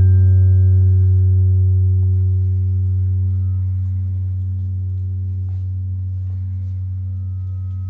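A low, steady ringing tone with a stack of overtones, slowly fading away. A few faint ticks sound over it.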